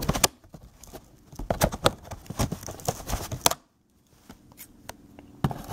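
Scissors snipping and clicking at the packaging straps that hold a plastic dart rail to a cardboard box insert, with cardboard scraping and knocking between the cuts. The sound drops out completely for a moment a little past halfway.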